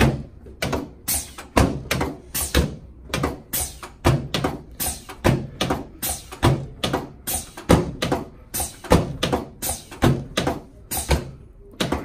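A rapid, uneven series of sharp taps or knocks, about two or three a second.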